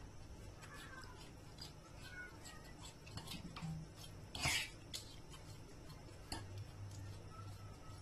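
Metal fork faintly scraping and tapping against a non-stick frying pan while mashing soft cooked peppers and tomatoes, with a sharper clink about four and a half seconds in.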